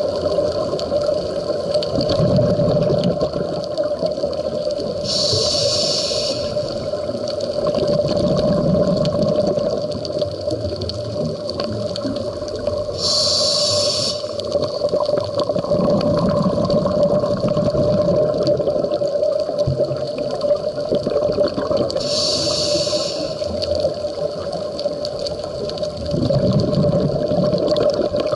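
Scuba diver breathing through a regulator underwater. Three short hisses of inhaled air about eight seconds apart alternate with low bubbling bursts of exhaled air, over a steady hum.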